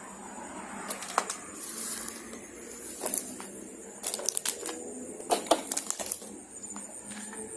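Footsteps crunching on debris: irregular sharp clicks and crunches, busiest between about four and six seconds in.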